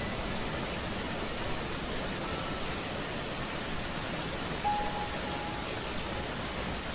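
Steady rain falling, an even hiss with faint patter of drops. About two-thirds of the way through, a brief short tone sounds over it.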